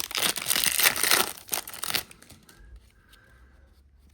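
Foil trading-card pack wrapper being torn open and crinkled, a dense crackle for about two seconds, then only faint handling sounds.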